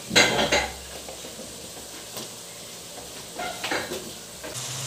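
Green papaya wedges going into a metal pot of sautéed chicken, clattering against the pot and each other: a loud burst of clatter right at the start and a smaller one about three and a half seconds in, over faint sizzling.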